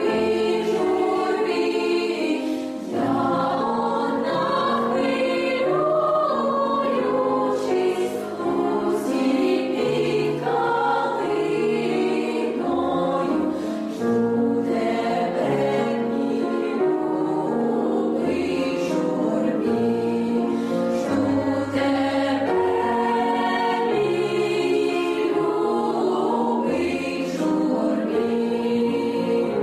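Girls' choir singing a Ukrainian song in parts, with low held accompaniment notes beneath the voices.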